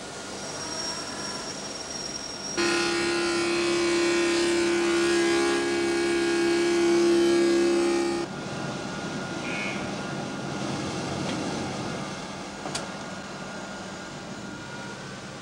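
Machine-shop noise from automated machine tools working metal. About two and a half seconds in, a loud steady whine of several tones comes in and cuts off abruptly near eight seconds, leaving a steady mechanical hum.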